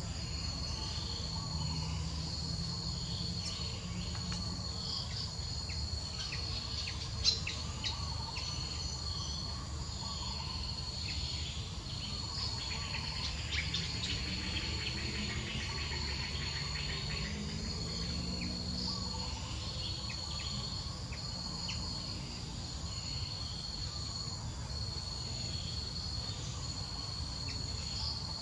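A steady, high-pitched chorus of insects runs throughout, with one sharp click about seven seconds in.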